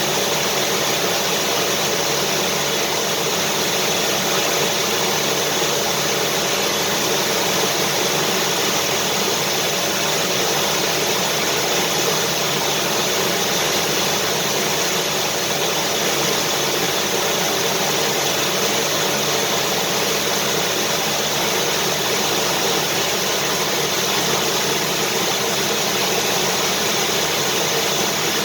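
Vacuum cleaner running steadily, a constant whooshing noise of motor and airflow with a faint steady hum, unchanging throughout.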